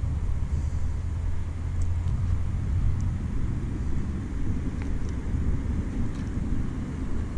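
Steady low outdoor rumble with a few faint, light ticks scattered through it.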